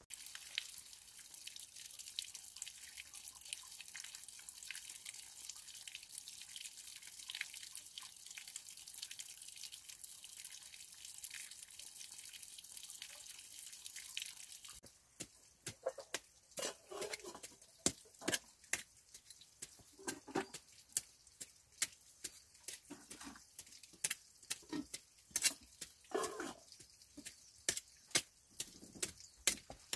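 A steady high hiss with light ticks, then, from about halfway through, irregular sharp clicks, knocks and scrapes of a small hand tool digging and tapping in stony earth.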